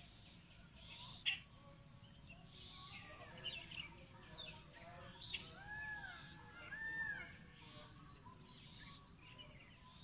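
Faint mixed birdsong: scattered short chirps and calls from several birds, with a few arched whistled notes about six to seven seconds in and one sharp click a little over a second in.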